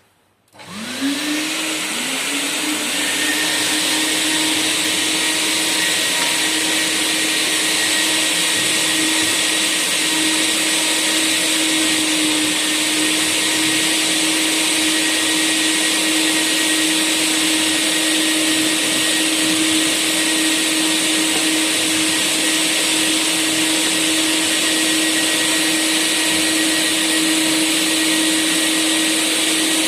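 CleanVac WD753-S three-motor industrial wet/dry vacuum switching on, its whine rising as the motors spin up over the first couple of seconds. It then runs at a steady pitch with a strong rush of air.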